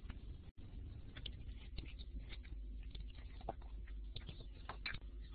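Faint background noise from an open microphone on a narrow web-conference audio line: a steady low hum with scattered small clicks and rustles.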